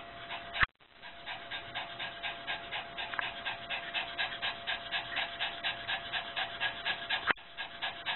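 A small dog panting rapidly and rhythmically, about four to five breaths a second, from nighttime anxiety. A sharp click and a moment's dropout come just under a second in.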